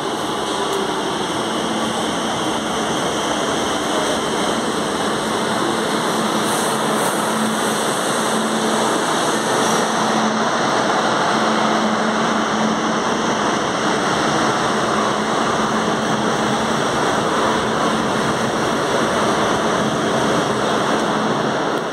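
Metro train pulling into an underground station and running along the platform: a steady rushing rumble with a steady hum, getting somewhat louder over the first several seconds.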